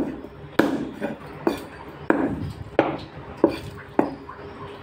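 Butcher's cleaver chopping chicken on a chopping block: about six sharp strikes, roughly every half second to second.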